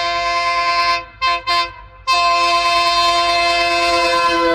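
Locomotive horn: one long blast, two short toots, then a second long blast, each a steady chord of several tones.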